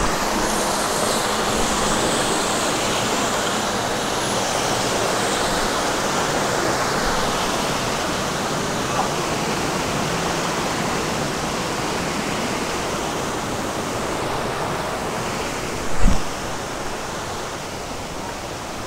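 Steady rush of running water from a mountain stream or spring, with one short thump about 16 seconds in.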